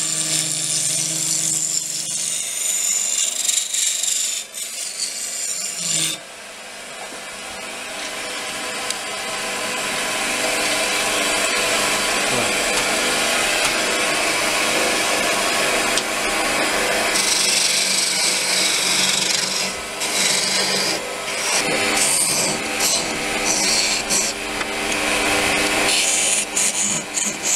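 A wood lathe spins a green oak blank while a hand-held gouge cuts it, making a continuous scraping, hissing sound of shavings over the steady hum of the lathe motor. The sound drops sharply about six seconds in, then builds again as cutting resumes. Near the end the tool cuts a recess for chuck jaws into the end of the blank.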